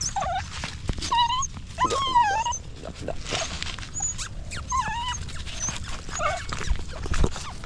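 Young stray puppy crying: a series of short, high, wavering whines, about five over a few seconds.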